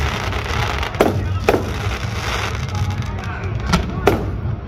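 Fireworks display: aerial shells bursting with sharp bangs, one about a second in, another half a second later, and two more close together near the end, over a steady background rumble.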